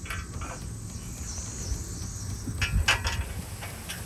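A few light metallic clicks, about two and a half to three seconds in, as bolts and hardware are handled and fitted into the steel side armor's brackets under the Bronco. A steady high insect drone sounds throughout.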